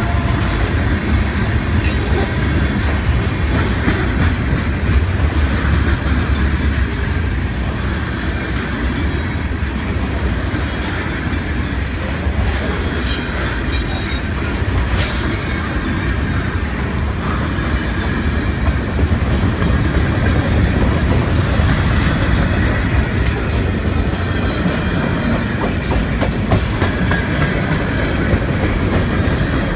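Freight train cars rolling past at close range: a steady, loud rumble and clatter of steel wheels on the rails. Two brief high-pitched squeals come through near the middle.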